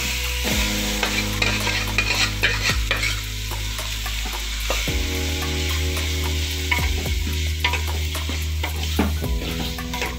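Marinated chicken frying in hot oil in a metal pot, with a steady sizzle while a metal spoon stirs it, scraping and clinking irregularly against the pot.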